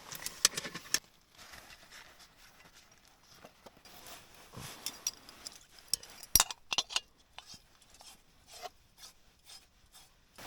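Camping cooking gear being handled and unpacked: rustling and rubbing with scattered sharp clicks and knocks, a louder cluster of clicks a little past the middle.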